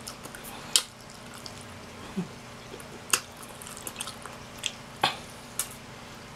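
Close-up mouth sounds of eating chicken wings by hand: wet lip smacks and chewing clicks at irregular intervals, a few of them sharp and loud.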